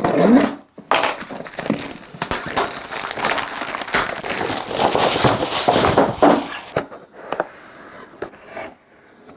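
Plastic shrink-wrap crinkling and crackling as it is pulled off a sealed box, with lighter rustling near the end.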